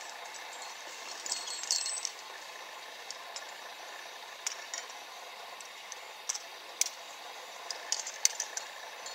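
Metal climbing gear, carabiners and quickdraws, clinking and rattling in a few short bursts over a steady hiss.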